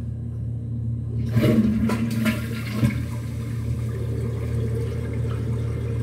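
Toilet being flushed: water starts rushing a little over a second in and goes on as a steady rush of running water.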